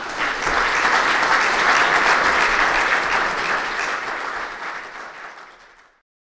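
Audience applauding, swelling over the first couple of seconds and then fading away near the end.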